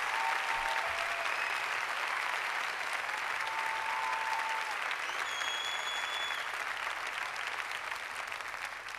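Applause from a crowd, dense and steady, with a few whistles, fading away near the end.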